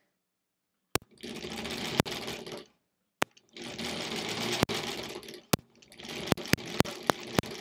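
1938 Kenmore Model 38 sewing machine stitching in two short runs of a second or two each, with sharp clicks between them and a quick string of clicks near the end.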